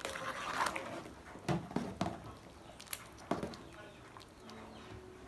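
A few sharp knocks and clicks, about four in the middle of the stretch, over a soft hissing haze that is loudest at the start.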